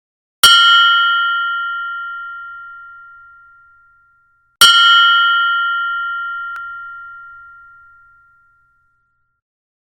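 Mindfulness meditation bell struck twice, about four seconds apart, each strike a clear high ring that fades out over about four seconds.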